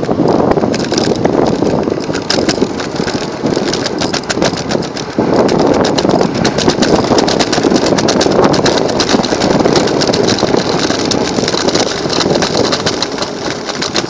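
Modified kids' electric micro scooter ridden at speed: loud, fluctuating road and wind noise picked up on the scooter, with rapid rattling clicks from the frame and wheels.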